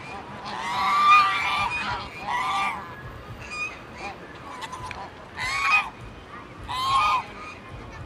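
Domestic geese honking: one long, loud honk about half a second in, then three shorter honks spread through the rest, with fainter calls in between.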